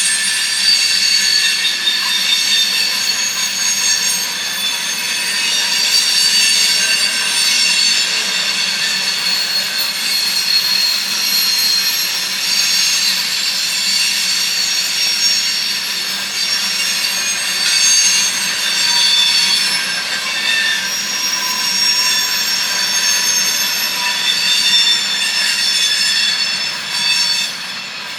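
Railroad cars rolling past with their wheels squealing on the rails: a continuous tangle of high-pitched squeals that shift and overlap, easing off near the end.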